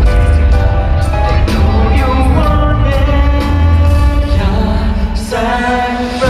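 Live pop music: a band playing while a singer holds long notes over a heavy bass.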